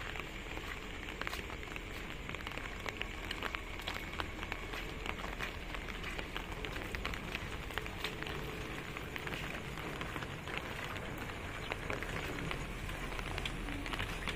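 Light rain, a night drizzle, falling steadily, with many small drops tapping in irregular scattered clicks.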